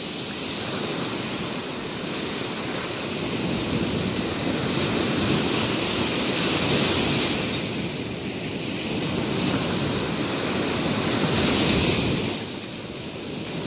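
Surf washing onto a sandy beach: a steady rushing that swells twice, easing off in between and again near the end.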